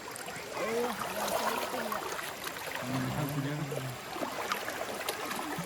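Steady flow of stream water, with faint voices talking and a low voice about three seconds in.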